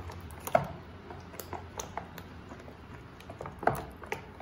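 Thick tomato dosa batter of rice flour and semolina being stirred in a plastic bowl: irregular soft squelches and light clicks, with louder ones about half a second in and near the end.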